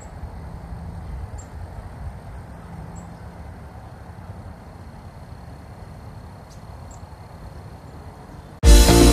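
Wind rumbling and buffeting on the microphone over outdoor ambience, with a faint steady high tone. Loud music cuts in abruptly near the end.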